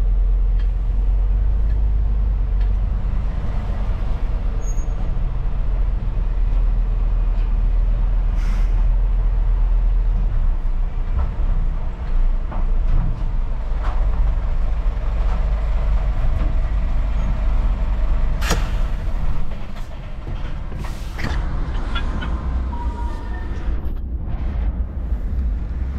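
Inside an HGV cab: the lorry's diesel engine runs with a steady low rumble as the truck drives slowly. About three-quarters of the way through comes a short sharp hiss of the air brakes, and the running is quieter afterwards.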